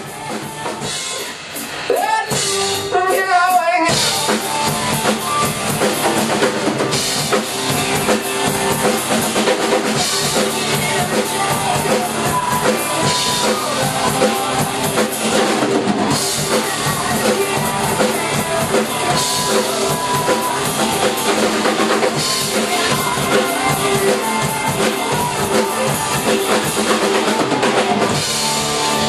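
Band music with a prominent drum kit and bass drum, getting louder about two seconds in.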